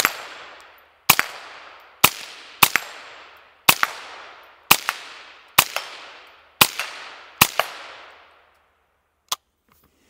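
A Volquartsen VT2 semi-automatic rimfire rifle fired nine times at roughly one-second intervals. Each shot is followed a fraction of a second later by a smaller crack of the bullet hitting a steel target, and each trails off in a long echo. A single faint click comes near the end.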